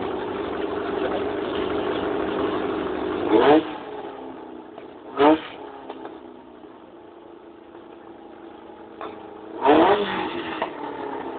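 Classic Volkswagen Beetle's air-cooled flat-four engine idling while staged at a drag strip starting line, blipped in three short sharp revs that rise in pitch: one about three seconds in, a smaller one two seconds later, and a loud one near the end.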